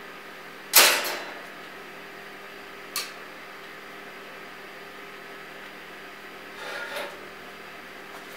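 Steady hum of glass-studio equipment, broken about a second in by one loud, brief rasping clatter of a tool. A single sharp click follows near three seconds, and a softer scrape comes near seven seconds.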